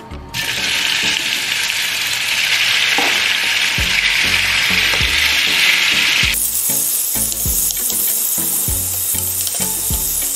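Raw chicken pieces hitting hot oil in a nonstick frying pan and sizzling strongly, starting suddenly just after the start; later the pieces are pushed and stirred about in the pan.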